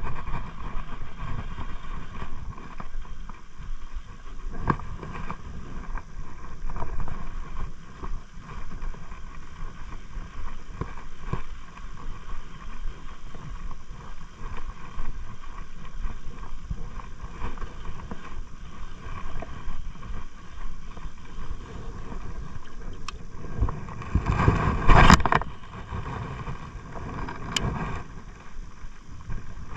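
Steady outdoor wind-and-water noise with a low rumble and faint scattered clicks, and a louder rush lasting about two seconds near the end.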